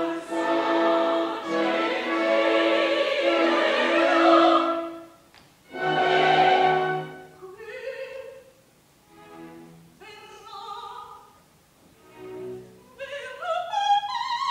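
Live opera performance: singers with orchestra. Loud held chords for the first five seconds, a brief break, another loud passage, then quieter phrases and a line that climbs step by step near the end.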